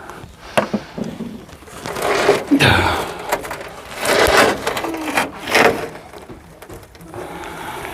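Handling sounds of small nuts being worked onto the window-mounting bolts of a van door, with sharp metal clicks and short creaks as the nut keeps spinning on its bolt.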